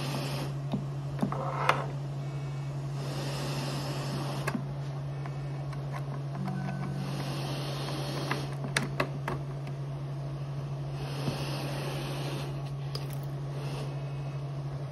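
Philips Trilogy Evo ventilator running and cycling breaths: a steady hum underneath, with a hiss of air through the circuit about every four seconds. A few sharp clicks of plastic parts being handled.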